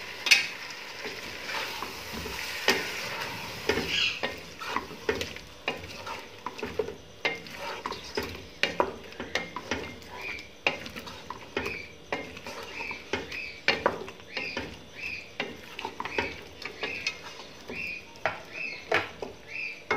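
Wooden spatula stirring and scraping chicken, potatoes and masala frying in a pot, with a steady sizzle and irregular knocks against the pot. In the second half the stirring settles into quick, even scraping strokes. This is the bhunai stage: the masala is being fried down after a splash of water.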